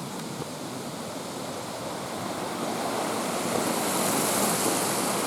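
Rushing water of a waterfall and its stream, a steady hiss that swells louder partway through and is loudest around four to five seconds in.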